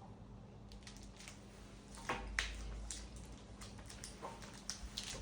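Close-up eating sounds of a bar of dark chocolate: a crisp bite or snap about two seconds in, then chewing with scattered small mouth clicks.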